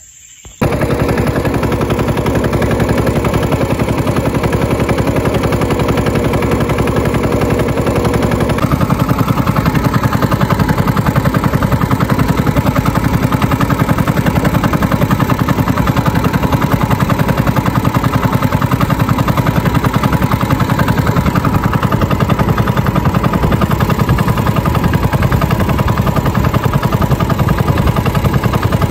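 Small boat engine running steadily under way, a loud, fast, even pulsing that cuts in abruptly about half a second in.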